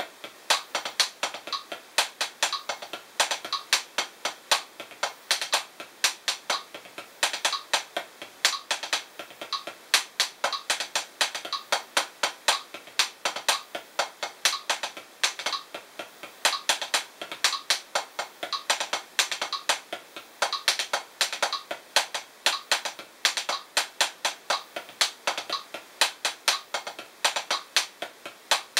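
Los Cabos 7A hickory drumsticks tapping the drag paradiddle #2 rudiment on a Drumeo P4 practice pad at 60 bpm: a steady stream of sharp taps in repeating clusters, with quick grace-note drags.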